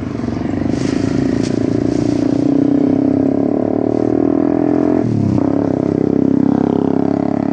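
A small engine running steadily at an even speed, with a brief falling sweep about five seconds in.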